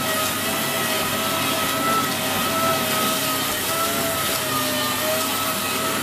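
Dyson Big Ball Animal cylinder vacuum cleaner running as its floor head is pushed over carpet: a steady rush of air with a motor whine that wavers slightly in pitch.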